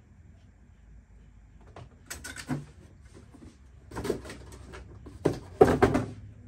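Cardboard box and plastic packaging being handled: short bursts of rustling and knocking about two seconds in, again about four seconds in, and loudest near the end.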